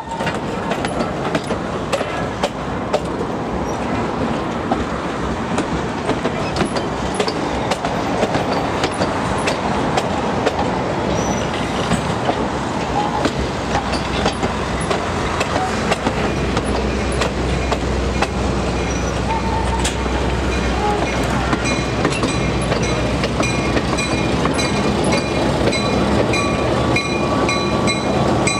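Passenger train rolling slowly past: coach wheels clicking over rail joints with a steady rumble of wheels on rail. A deeper rumble comes in about halfway, and steady high squeals from the wheels come in during the last third as the end of the train nears.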